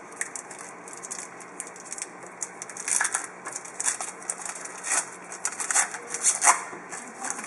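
Foil trading-card pack wrapper being torn open and crinkled by hand: an irregular crackling rustle with sharp crinkles, loudest about three, five and six and a half seconds in.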